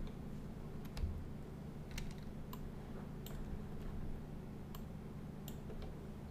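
Scattered, irregular clicks from a computer mouse and keyboard, about eight in all, over a steady low hum.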